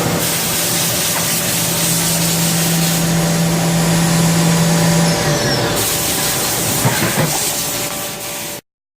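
Haas VF-2SS CNC machining center's spindle running at 10,000 RPM: a steady hum with hiss. The hum stops a little past five seconds in, and the sound cuts off abruptly near the end.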